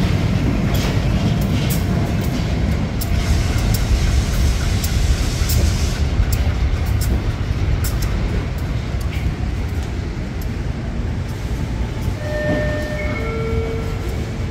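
MRS freight train passing close by: the diesel locomotives' engines run with a heavy low rumble, then loaded ore gondolas roll past, their wheels clicking over rail joints. Near the end a few brief high tones ring out over the rolling.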